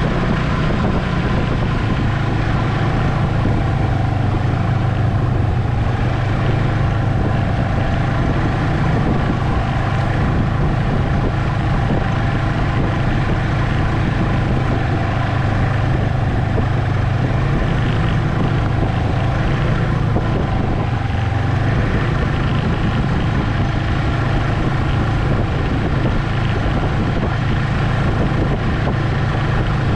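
Ski-Doo Expedition SE snowmobile engine running steadily under way on a trail, a continuous even drone.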